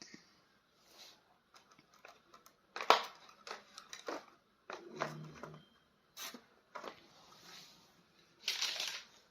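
Intermittent crinkling and clicking of plastic toy packaging being handled and opened, in short irregular bursts, the loudest about three seconds in.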